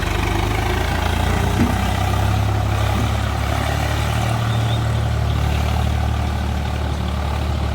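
Heavy diesel engine running steadily at a low, even pitch.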